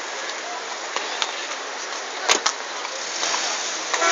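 Steady rushing outdoor noise with no clear source, with a sharp click a little past two seconds in and a smaller one just after.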